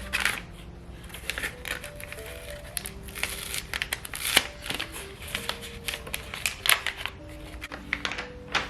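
Wrapping paper crinkling and tearing in repeated short rustles as a small wrapped gift is unwrapped by hand, over soft background music with slow held notes.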